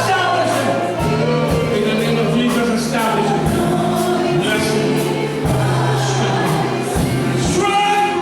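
Gospel worship music: a choir singing over a band with a steady bass line and drum beats.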